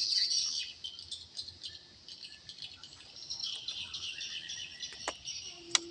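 Dense, continuous high chirping of insects and small birds, with two sharp clicks near the end.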